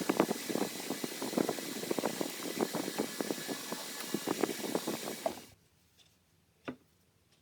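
Steady shop-fan hiss with a run of irregular light knocks and rubbing as the lineman's pliers are handled. Both stop abruptly a little over five seconds in, leaving near silence broken by a single sharp click.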